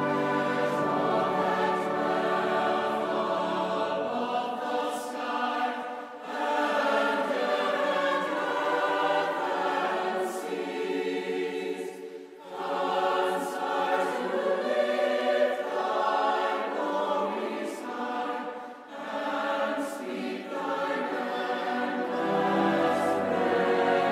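Large mixed choir singing a hymn with orchestral accompaniment, in long phrases with short breaks about every six seconds. The deep bass drops away about four seconds in and comes back near the end.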